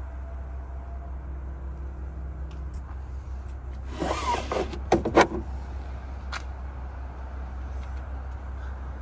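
The latch of a van's swing-out side window being worked, about halfway through: a short creak, then two sharp clicks in quick succession and a fainter click a second later. A steady low hum runs underneath.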